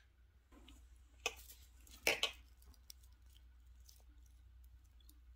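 Faint handling noises of potted plants: soft rustles and small clicks as fingers pick at a withered flower and leaves, loudest about a second and two seconds in, over a low steady hum.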